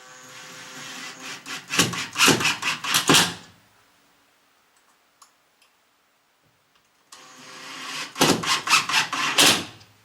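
Power drill run twice into timber to fix a roller blind bracket, each run building up and ending in a rapid series of loud clicks.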